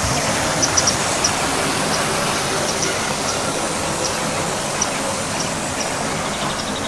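A steady rushing noise with faint, brief high chirps scattered through it.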